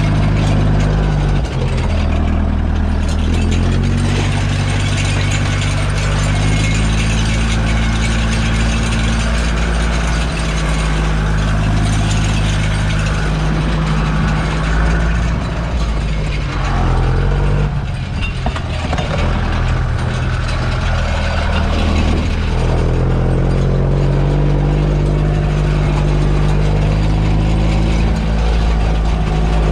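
Fendt 308 LSA tractor's diesel engine running while pulling a grassland harrow, heard from inside the cab, with mechanical rattling alongside. Its pitch drops about a second and a half in, wavers with engine speed between about 16 and 22 seconds, then steadies at a higher pitch.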